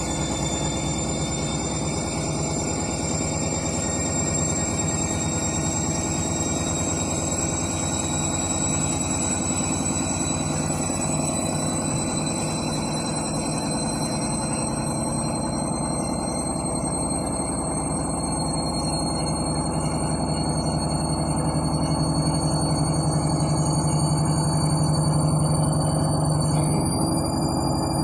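Front-loading washing machine in its final spin: the motor's whine climbs slowly in pitch as the drum speeds up, over a steady low hum that swells louder toward the end. The sound shifts about a second before the end.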